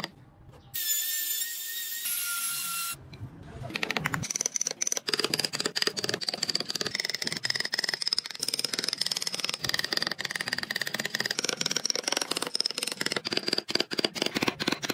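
Carving tool cutting and scraping into hardwood: a fast, dense run of small scraping clicks over a steady high whine, starting about four seconds in. Before it comes a brief steady hiss.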